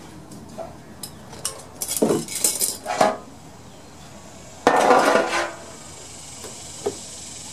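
Small metal pan clinking and knocking as it is handled, a quick run of light clinks over a couple of seconds, then one louder rattling clatter about five seconds in.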